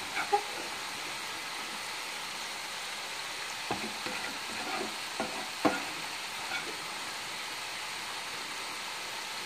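Spatula scraping and knocking against a skillet as the last of the fried potatoes and onions are scraped out, a handful of scattered scrapes and taps over the steady sizzle of the hot pan.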